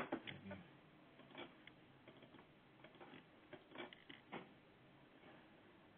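Near silence on a narrow-band call line, with one sharp click right at the start and a few faint scattered ticks after it.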